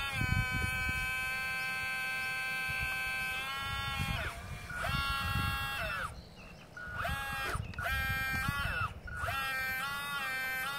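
Electric motor whine of a radio-controlled scale Cat 320 excavator as the boom and bucket are worked. The whine holds steady, then slides up or down in pitch each time it starts and stops, drops out briefly about six and about nine seconds in, and runs over low thumps.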